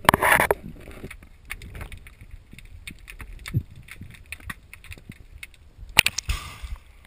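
Water sounds heard through an underwater camera: a rush of bubbles at the start, faint ticking and crackling in mid-water, then splashing as the camera breaks the surface about six seconds in.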